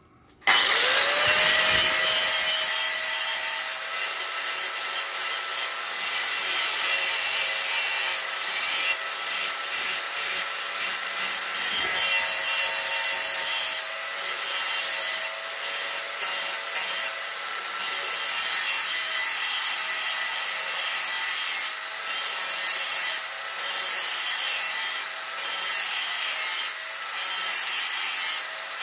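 Power grinder with a grinding wheel spinning up about half a second in to a steady whine, then grinding a worn steel lawn mower blade to sharpen it. A harsh hiss with short breaks where the wheel lifts off the blade.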